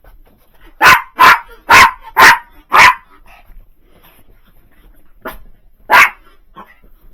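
Dog barking: a quick run of five loud barks starting about a second in, then a softer bark and one more loud bark near the end.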